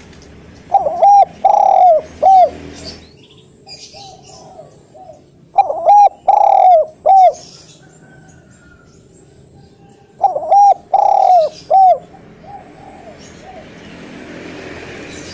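Spotted dove singing its loud cooing song: three phrases of several coos each, about four and a half seconds apart.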